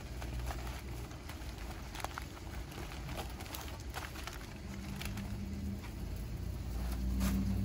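Aluminium foil crinkling and crackling in short bursts as it is crimped around a pork butt and the wrapped roast is lifted. From about halfway a low steady hum comes in and grows louder toward the end.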